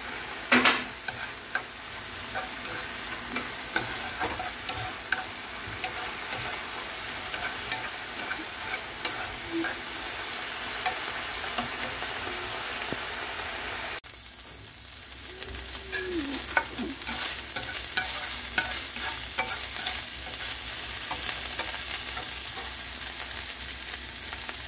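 Thin strips of pork sizzling in oil in a nonstick frying pan while being stirred with chopsticks, with small clicks and scrapes of the sticks against the pan. About halfway through, the sizzle cuts out for a moment and comes back brighter and steadier.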